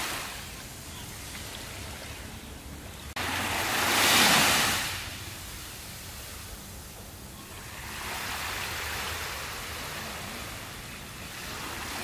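Small waves breaking and washing up a sandy beach, the surf swelling and fading in turn. The loudest wash starts abruptly about three seconds in, and a gentler one swells up near eight seconds.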